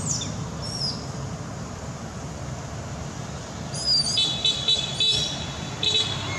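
Steady low rumble of distant traffic under high chirping calls. About four seconds in, and again near the end, comes a short, flat, pulsing horn-like toot.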